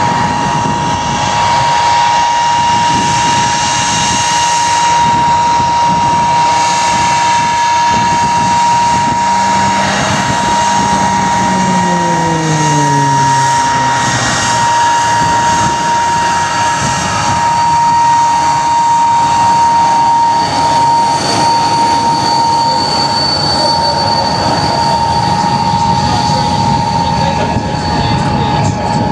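Aircraft engine noise with a steady high whine, and an aircraft passing with a falling pitch about halfway through.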